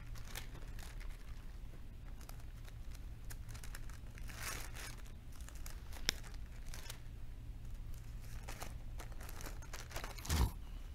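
Thin Bible pages being turned and leafed through by hand: a run of soft paper rustles and crinkles over a faint low hum. There is one sharp click about six seconds in and a brief low bump near the end.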